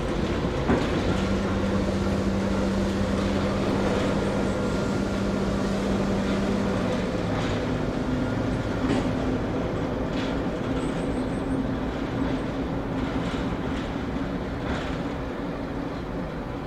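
BR Class 08-type diesel shunter's engine running as the locomotive moves slowly along the yard tracks, with occasional clanks and clicks from the wheels and running gear. The engine note changes pitch about halfway through.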